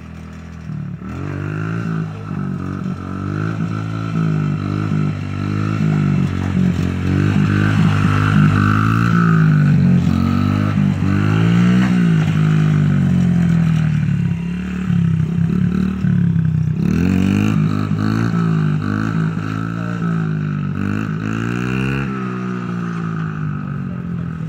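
Small pit bike engine revved up and down over and over, its pitch rising and falling about once every second or so, as the rider lifts the front wheel into wheelies. It runs low and steady at first and settles again near the end.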